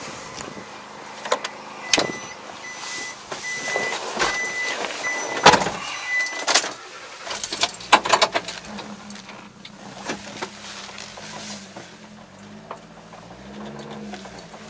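Kei truck being boarded and driven off: the cab's warning chime beeps about twice a second for some four seconds amid door and key knocks, a door shuts with a thud about five seconds in, then the small engine runs with a low, steady hum as the truck moves off.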